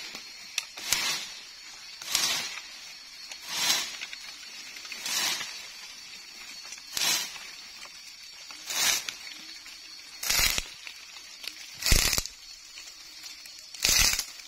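A rattan cane is being hauled out of the forest in repeated tugs, about one every one and a half to two seconds. Each tug gives a short rasping, rustling scrape as the spiny cane drags through leaves and against the tree. The last few tugs are louder, with a deeper thud.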